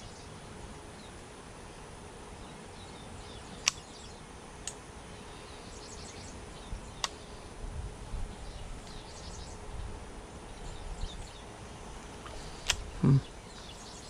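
Outdoor creek-bank ambience: faint insect and bird chirps over a steady background, broken by a few sharp clicks. A brief low sound near the end is the loudest moment.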